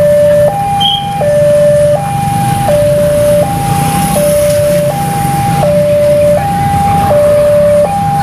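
Railway level-crossing warning signal sounding its steady two-tone electronic alarm, switching between a higher and a lower note about every three-quarters of a second. It warns that a train is approaching and the barrier is down. Motorcycle engines run underneath.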